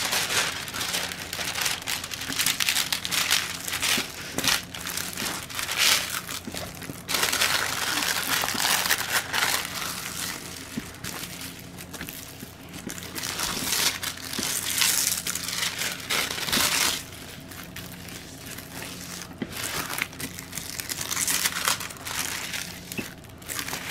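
Clear plastic protective film on a diamond painting canvas crinkling as hands rub and press it flat, in irregular rustling bursts. The canvas is being smoothed out of its creases.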